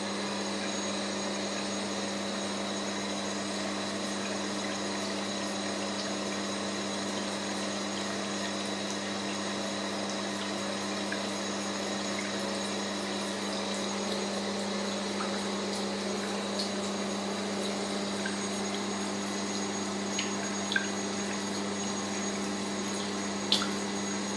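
Water tap running in a steady, turned-down stream, a constant hiss with a low hum, with a few small clicks near the end.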